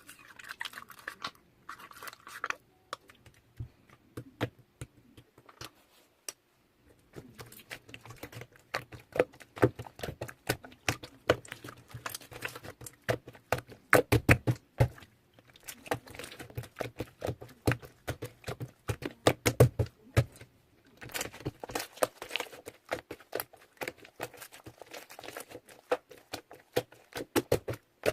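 Parcel packaging being handled and opened: irregular flurries of rapid clicks, taps and crinkly rustling, pausing briefly about six seconds in and again about twenty seconds in.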